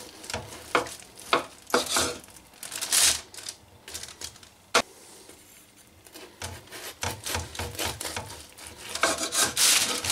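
Large kitchen knife sawing back and forth through a crusted loaf of cheese-filled Leberkäse on parchment paper, in irregular rubbing strokes, with one sharp click near the middle.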